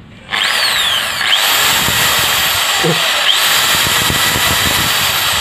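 INGCO ID6808 corded 680-watt impact drill switched on about a third of a second in, then running steadily with an empty chuck and no load. The run is a no-load test of the motor, which runs very fast.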